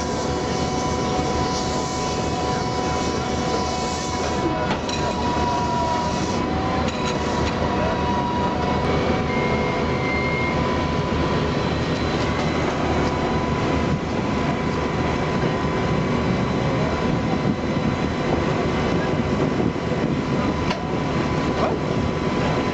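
A machine running steadily: a dense, even rumble with a constant high whine over it.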